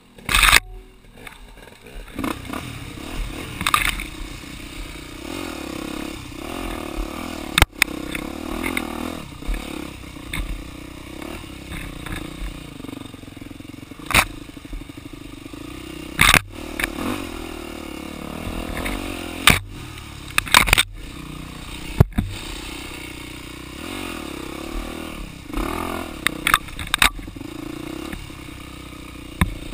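Yamaha dirt bike engine running through a trail ride, the throttle rising and falling, with repeated sharp knocks and scraping as brush hits the handguards and the bike jolts over rough ground.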